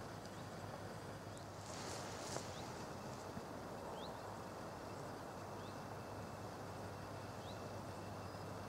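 Quiet meadow ambience: a steady hiss with a low hum under it, and a faint, short, rising chirp every second or two.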